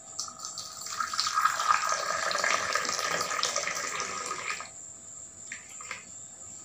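Hot milky tea poured in a long stream from a steel tumbler into a mug, a steady splashing pour lasting about four and a half seconds, then two light taps near the end.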